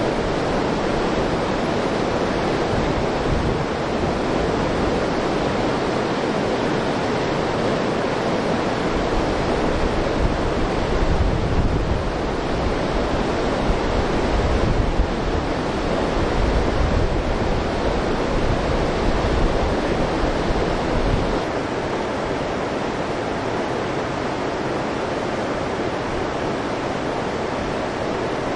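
Steady rush of a mountain river's flowing water, with gusts of wind buffeting the microphone for about ten seconds in the middle.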